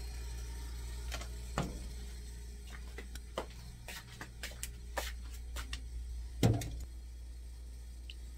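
A scatter of light clicks and knocks from a stainless steel cooking pot and kitchen utensils being handled, with one louder knock about six and a half seconds in, over a steady low hum.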